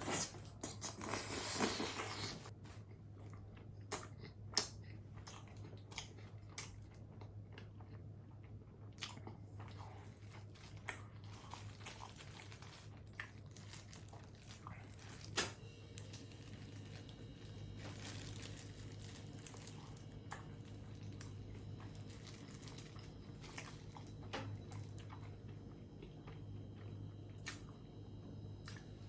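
A person eating burgers and chicken nuggets close to the microphone: bites, chewing and crunching. The loudest crunching comes in the first two seconds, then scattered smaller bites and clicks over a steady low hum.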